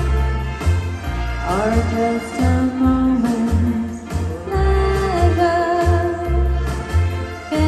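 A woman singing into a handheld microphone over a backing track with a steady bass beat.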